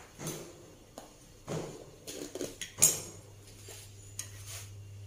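Clinks and knocks of kitchen dishes and utensils being handled and set down, several separate strikes with the loudest a little under three seconds in. A low steady hum comes in at about the same point.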